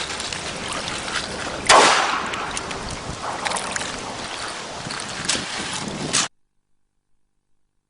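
Wind buffeting the microphone, with scattered small clicks and one much louder sudden bang about two seconds in that fades over half a second. The sound cuts off abruptly near the end.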